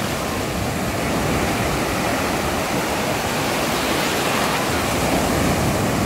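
Sea surf breaking and washing through the shallows: a steady hiss of waves that grows slightly louder over the first second or so.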